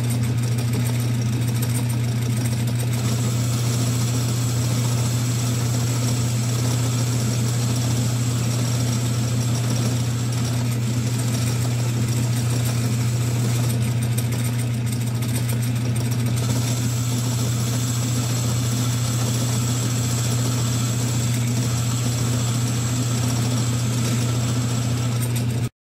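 Early-1950s Sheldon metal lathe running under power while facing the boss of a gear, giving a steady, loud motor and belt-drive hum with a faint high whine above it. The hum stops abruptly near the end.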